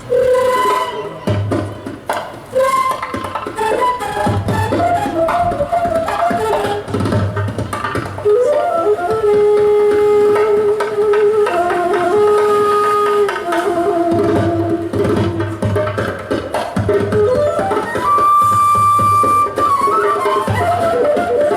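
Live band music: a melody of long held notes that slide from pitch to pitch, over a recurring low pulse.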